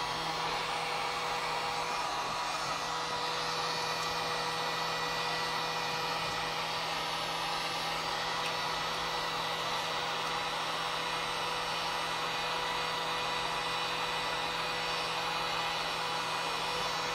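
Handheld hot-air tool running steadily on its low setting: an even rush of blown air with a faint hum. It is heating an LCD TV's circuit board to try to revive a faulty HDMI port.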